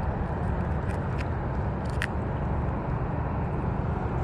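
Steady low rumbling background noise with no distinct source, with a few faint clicks, the clearest about two seconds in.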